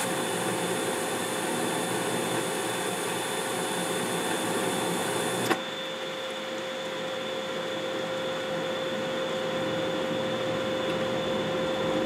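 Carrier 92% condensing gas furnace running with a steady whir from its inducer fan under the hiss of the lit burners. About five and a half seconds in there is a click and the burner hiss cuts off: the gas valve has shut and the flames gone out at the end of the call for heat, while the inducer keeps running.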